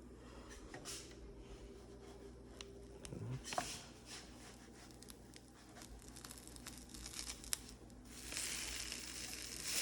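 Quiet spatula handling and a short scrape on the pan as pancakes are worked, then pancake batter sizzling loudly in the hot pan from about eight seconds in.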